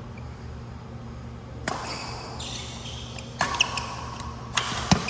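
Badminton rally: a shuttlecock is struck sharply by rackets three or four times, a second or so apart. Sneakers squeak briefly on the court floor between the hits.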